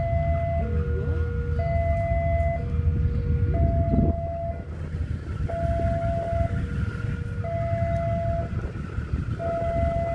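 A railway level crossing alarm sounding a steady two-tone signal, a higher tone and a lower one taking turns about once a second. Under it runs the low rumble of a CC203 diesel-electric locomotive moving on the tracks.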